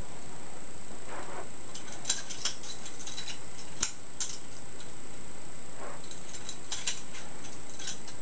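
Balisong (butterfly knife) being flipped: scattered sharp metallic clicks, some in quick pairs, as the handles and blade swing and knock together. A steady high-pitched whine sits under them.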